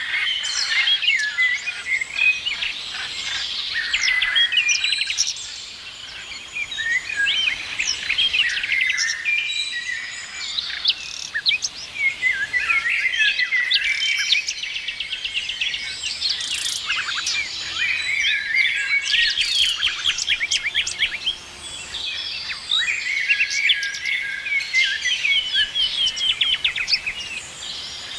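Several songbirds singing and chirping at once, a dense chorus of overlapping trills, rapid chirp series and quick up-and-down whistles.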